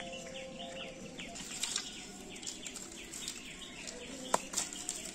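Small birds chirping in quick, repeated short calls, with a few sharp snaps and crackles from a dry-straw cooking fire, the loudest about four seconds in.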